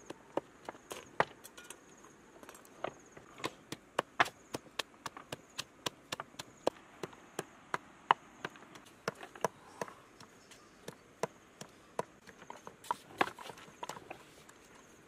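Wooden pestle pounding in a mortar: sharp, irregular knocks, about two or three a second.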